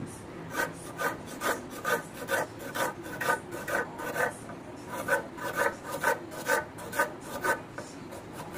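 Kitchen knife slicing a red onion on a wooden chopping board: a crisp cut ending in a tap on the board, about two a second, with a short pause about four and a half seconds in.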